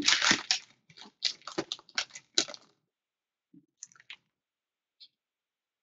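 Gold foil trading-card pack wrapper being torn open and crumpled: a quick run of sharp crinkles and crackles that stops about two and a half seconds in. After it come a few faint clicks and taps as cards are handled.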